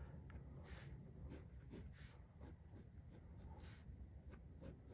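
Faint scratching of a pencil on drawing paper: a series of short, light sketching strokes, roughly one to two a second.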